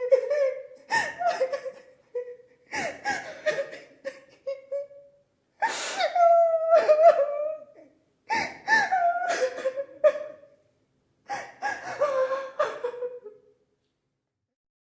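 A series of about five laser-zap sound effects. Each opens with a sharp burst and a pitched tone that slides down and settles, with a short gap before the next.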